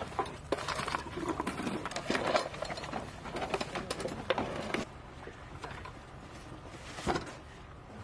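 Clicks, knocks and rattles of plastic and metal fittings as anti-tank missile launcher tubes are handled. The handling is busiest for the first five seconds or so, then thins to a few stray clicks.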